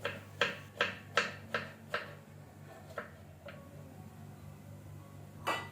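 Knife chopping vegetables on a cutting board: about seven quick, even cuts in the first two seconds, then a few slower cuts, over a low steady hum.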